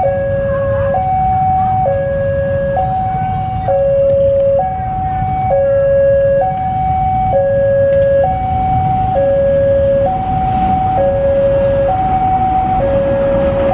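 Railway level-crossing warning alarm sounding a steady two-tone high-low pattern, each tone held a little under a second, signalling that a train is approaching. A low rumble runs underneath.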